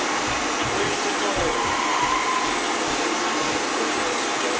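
Steady, loud rushing hiss with faint, muffled movie-trailer sound from a small TV speaker underneath it.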